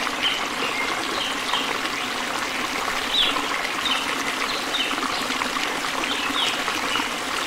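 Water trickling steadily, with short high chirps scattered through it.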